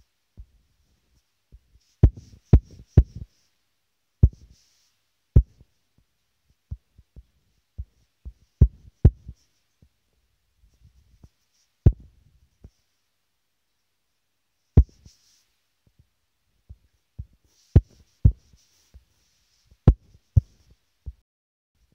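Irregular dull taps and knocks of fingertips on a phone's touchscreen while drawing, picked up by the phone's own microphone, some with a faint rubbing hiss of strokes across the glass. They come in small quick clusters, with the busiest runs about two seconds in and again near the end.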